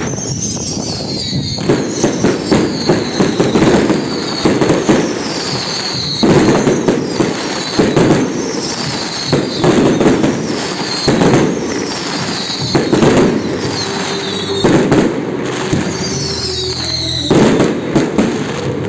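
Aerial fireworks display: clusters of shells bursting in quick succession, with crackling, in waves every second or two. A high whistle-like tone falls in pitch again and again over the bangs.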